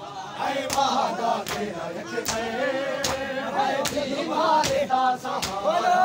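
Group of men chanting a noha in unison, with sharp strokes of matam (hands striking bare chests together) keeping a steady beat of about one stroke every 0.8 seconds.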